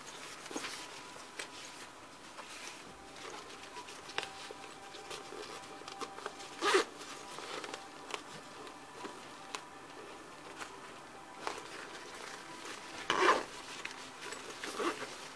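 Zipper on a Lowepro Format 120 nylon camera bag being run, two short loud zips about six seconds apart, with the fabric rubbing and rustling as the bag is handled.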